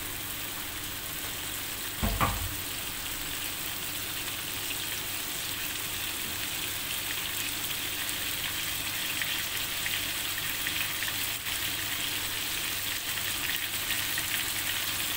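Chicken pieces in curry paste and oil sizzling steadily in a wok, left to fry without stirring, growing a little louder. A single dull thump about two seconds in.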